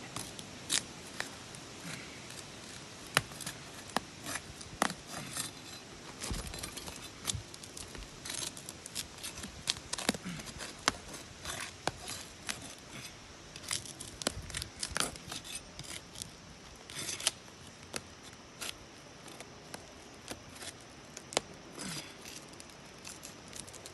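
Asphalt shingles being pried apart: irregular sharp cracks, scrapes and tearing as the tar sealant strip is broken and the shingles give. The cracking is the sign of shingles too brittle to lift without damage.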